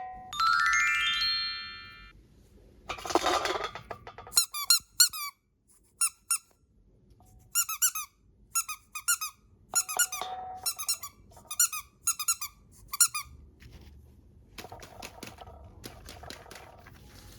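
A rising pitched glide, a short noisy burst, then a run of short, high squeaks in quick groups of two or three, ending in faint crinkling and clicking.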